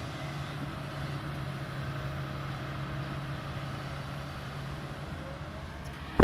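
Kobelco hydraulic excavator's diesel engine running steadily under work, with a loud thump at the very end.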